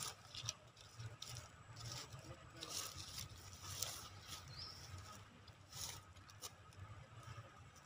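Faint, scattered rustles and light taps of dry leaves as a long-tailed macaque picks through them on the ground, over a low steady rumble.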